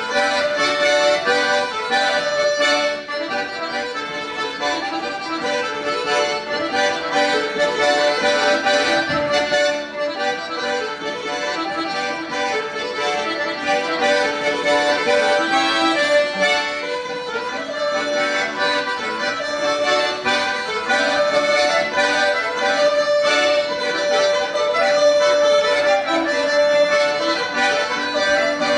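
Two garmon button accordions and a dombra playing a traditional folk tune together. The accordions carry the melody and chords, and the plucked dombra plays along.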